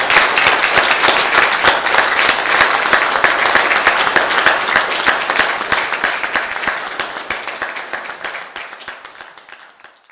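Audience applauding, the clapping gradually dying away over the last few seconds.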